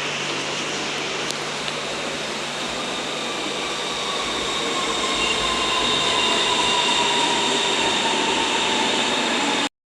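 Siemens Modular Metro EMU running on the rails, heard on board: a steady rumble and rail noise with a thin whine that slowly falls in pitch, growing slightly louder about halfway through and cutting off abruptly near the end.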